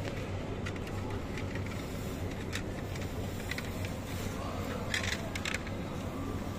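Steady low hum of the supermarket, with shopping-cart rattle and several light knocks and clatters as plastic quark tubs are taken off the chilled shelf and dropped into a wire shopping cart. The loudest clatter comes about five seconds in.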